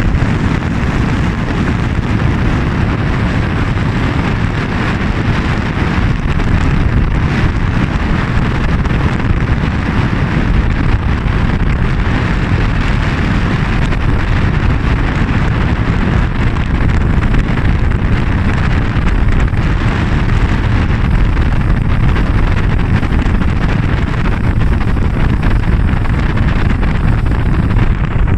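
Steady wind buffeting the microphone over the running motor of a small boat moving across the water.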